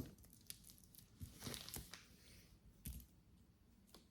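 Faint handling sounds of jewelry and its packaging: a soft rustle and a few light clicks, over near silence.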